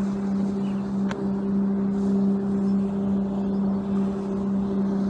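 Motorboat engine running as a steady, even drone.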